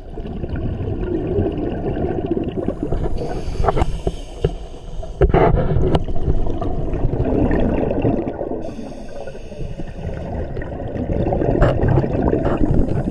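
Scuba diving underwater, heard through a camera housing: a muffled rush and gurgle of the diver's regulator breathing and exhaled bubbles, swelling and easing in waves, with a sharp knock about five seconds in.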